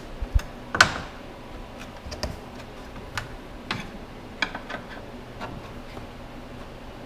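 Flathead screwdriver prying at the plastic grille retaining tabs of a 2014–2018 Chevrolet Silverado: a string of scattered, irregular clicks and taps of the blade against hard plastic, the sharpest about a second in.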